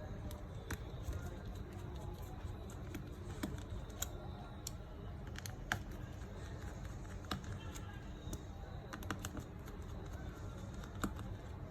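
Irregular small clicks and taps of a precision screwdriver working the back screws out of a smartphone, over a low steady hum.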